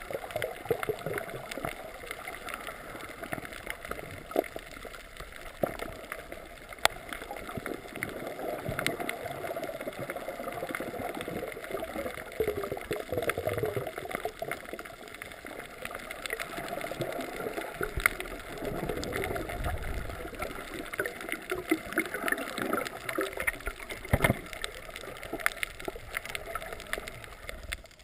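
Underwater sound picked up by a GoPro in its waterproof housing while snorkelling over a reef: muffled swirling and gurgling of water with many small scattered clicks and crackles, and a low rumble of water movement around two-thirds of the way through.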